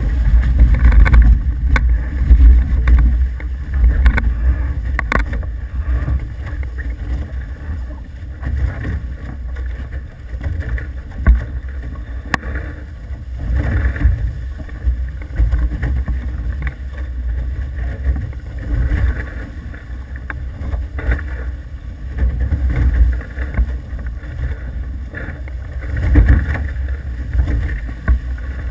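Wind buffeting the microphone in gusts, over a steady rush of water aboard an F18 catamaran under sail.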